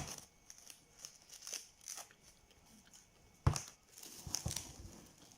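Plastic cling film being pulled from its roll, torn and crinkled, with scattered crackles and two sharp knocks, one at the start and one about three and a half seconds in.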